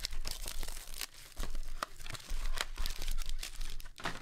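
Foil wrapper of a trading-card pack crinkling and rustling as it is handled, in many small irregular crackles.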